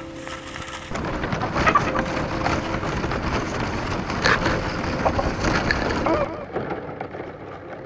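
Thin bamboo strips rustling and clicking against each other as hands weave and bend them into a basket, starting about a second in and stopping about six seconds in.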